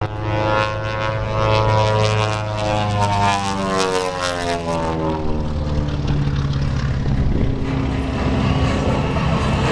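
Twin-engine Beech 18 aerobatic plane's radial engines and propellers droning through a low pass. The pitch falls as it goes by, about four seconds in, then settles into a lower drone as it moves away.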